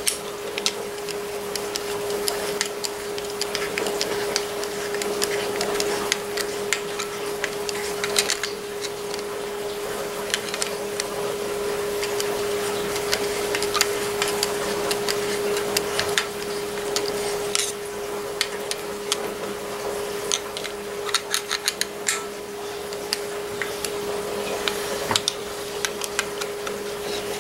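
Small metal parts and a flat-blade screwdriver clicking and scraping against the cast-iron Farmall touch-control housing as a part is worked into its bore, with scattered clicks over a steady hum.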